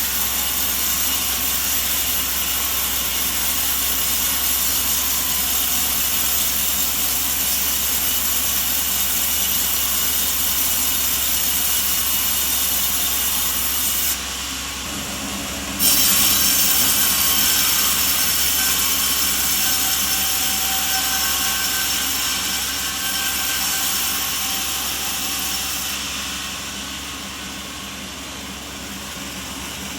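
Sawmill saw cutting through coconut timber, a steady high-pitched hiss. It drops off briefly about fourteen seconds in, comes back louder, and eases down over the last few seconds.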